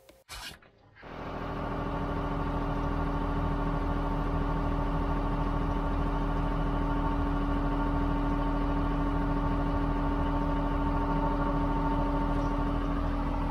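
Tracked log loader's diesel engine idling steadily, starting about a second in after a brief quiet gap.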